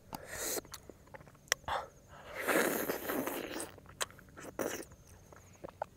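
Close-up eating sounds of a man chewing soft mangosteen flesh: scattered wet smacks and mouth clicks, with a longer breathy, rushing noise about halfway through.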